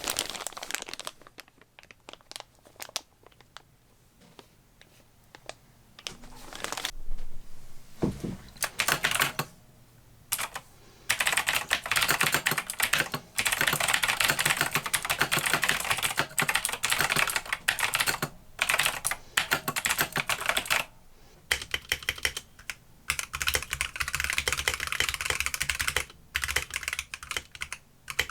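Typing on a mechanical keyboard: scattered keystrokes at first, then long runs of fast key clacks with short pauses from about seven seconds in. Around three quarters of the way through, the typing takes on a deeper thud underneath.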